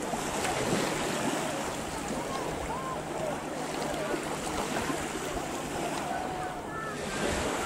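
Steady wash of Black Sea surf and wind on a beach, with faint scattered voices.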